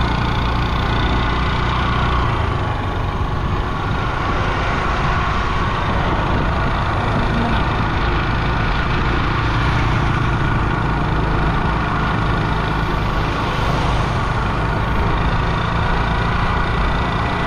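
Steady engine and road noise from a vehicle driving along a paved road, heard from on board.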